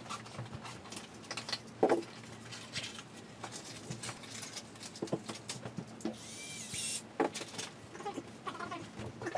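Scattered knocks and clatter of flat-pack chipboard furniture being assembled, with panels and tools being handled. One sharp knock comes about two seconds in, and a short rasping burst follows about six seconds in.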